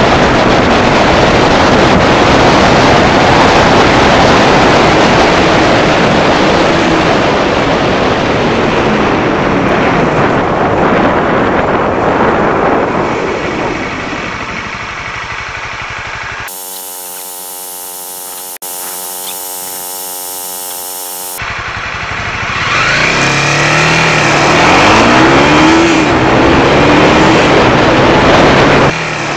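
Heavy wind rush over an open-air camera microphone on a Honda CB300R's 286 cc single-cylinder motorcycle at speed, easing off around the middle. In the last several seconds the engine note climbs repeatedly, dropping back each time as it goes up through the gears under hard acceleration.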